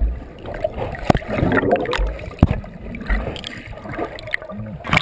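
River water churning and gurgling around an action camera held underwater, muffled, with a few sharp knocks and low thumps.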